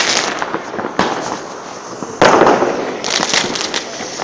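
New Year's Eve fireworks going off. There is a sharp bang about a second in, a louder one about two seconds in and another near the end, each trailing off into echo and crackle.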